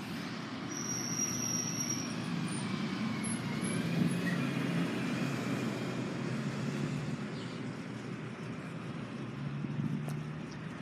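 Steady low motor hum over an even background noise, with brief thin high tones about a second in.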